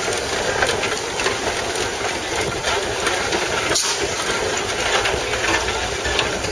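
Steam traction engine running, a steady mechanical noise.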